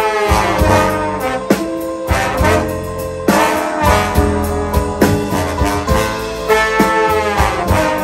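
Jazz band instrumental passage led by a section of trombones playing held, shifting chords over drum kit, piano and bass.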